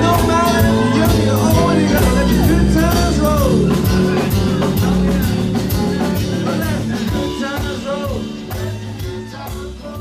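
Rock music with singing, guitar and a steady drum beat, fading out gradually over the second half.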